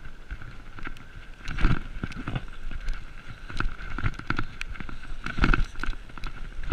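BMX bike rolling fast over a dirt track: tyres crunching on the dirt with the chain and frame rattling and clicking, and two heavy thumps, about a second and a half in and again near the end, as the bike hits bumps.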